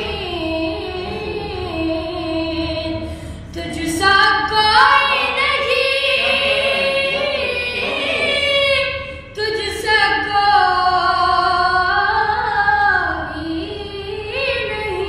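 A naat, an Islamic devotional song, sung in a high voice without instruments. It moves in long, wavering held notes, with brief breaks between phrases about three and a half and nine seconds in.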